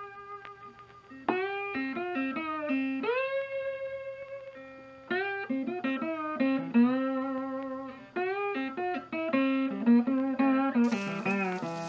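Background guitar music: a melody of plucked notes, some held and gliding up in pitch. A noisy hiss comes in under it near the end.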